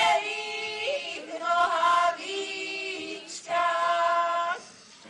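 A group of women singing a Slovak folk song a cappella, in four phrases of long held notes, falling quiet just before the end.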